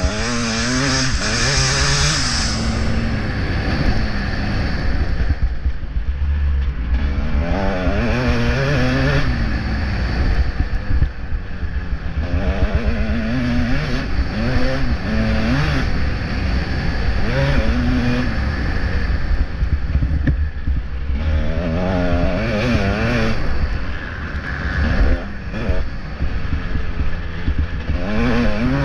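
Motocross bike engine heard from on board, revving up and falling back over and over as the rider works the throttle and shifts gears, over a steady low rumble of wind noise on the microphone.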